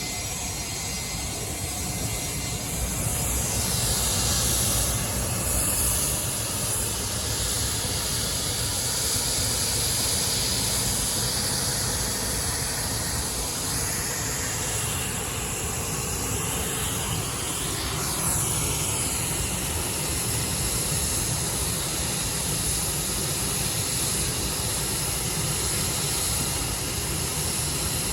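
Private jet's turbofan engines running with a steady hissing roar and a low rumble, their high whine sliding down in pitch a couple of times.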